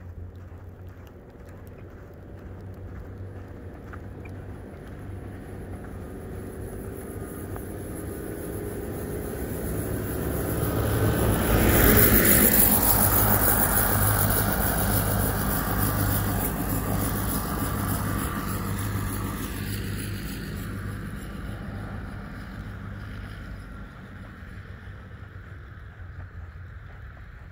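A salt-spreader truck passes close on a slushy, snow-covered road. Its engine and tyre hiss swell to a peak about twelve seconds in, then fade as it drives away. Wind noise on the microphone runs underneath.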